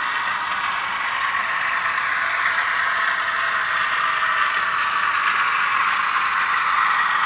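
ALCO 244 turbocharged diesel prime-mover sound from a TCS WOW DCC decoder, played through the model locomotive's small speaker: a steady, thin engine rumble with no deep bass, running under throttle.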